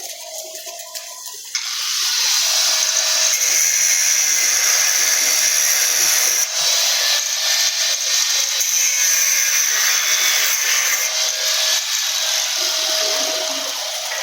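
A power tool switches on suddenly about a second and a half in and runs at a steady, loud, high-pitched hiss for about twelve seconds.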